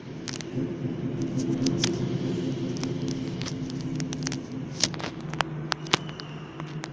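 Firecrackers going off off-camera in scattered, irregular sharp bangs, a few louder ones near the end, over a steady low rumble of an engine or traffic.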